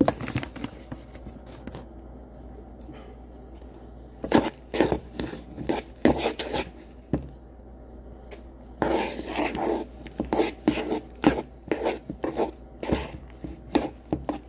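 Metal spoon stirring a thick mix of ice cream and milk in a bowl, scraping and knocking against the bowl. Quiet at first, then a quick, uneven run of clinks and scrapes from about four seconds in.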